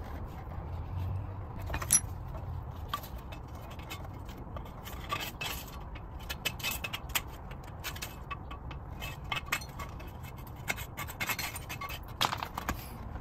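Scattered metallic clicks, clinks and scrapes of tools and parts being handled during a wheel bearing job, with one sharp clink about two seconds in and a busy cluster near the end.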